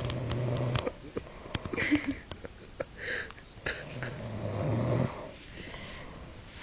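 Snoring: a low buzzing snore at the start and another about four seconds in, with small clicks and breathy sounds between.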